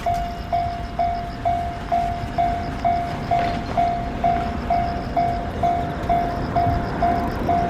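Japanese railroad crossing warning bell ringing its 'kan-kan', a single pitch struck evenly about twice a second, each strike tapering off briefly, over a steady low rumble.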